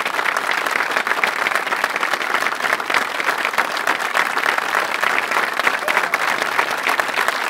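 Studio audience applauding, a dense, steady clatter of many hands clapping.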